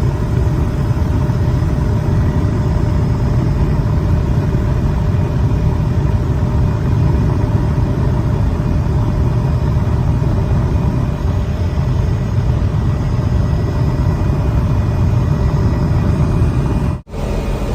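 A steady, loud engine drone with a low rumble and a few faint steady whining tones over it, broken by a brief cut-out near the end.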